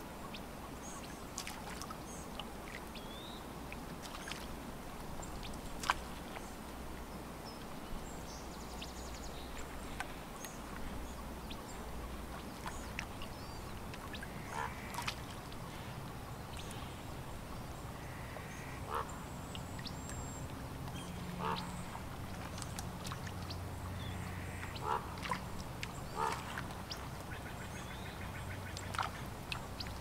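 Waterfowl calling now and then in short calls that come more often in the second half, over a steady wash of lapping lake water. A low hum joins about two-thirds of the way in.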